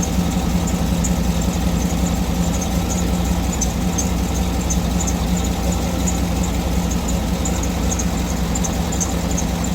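2008 Cadillac Escalade's 6.2-litre V8 idling steadily, with faint light ticks over the hum. The engine is running despite crankshaft position sensor codes (P0335, P0336) and an intermittent stall that is suspected to come from a wiring fault.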